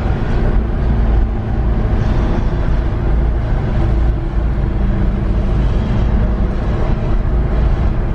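Inside the cab of a moving 1992 Suzuki Carry kei truck: its small three-cylinder engine running under throttle in second gear, with steady road and tyre noise.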